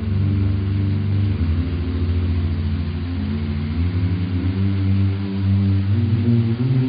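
Deep male voices humming a slow, low chord that moves to new notes a few times, over a steady hiss of falling rain.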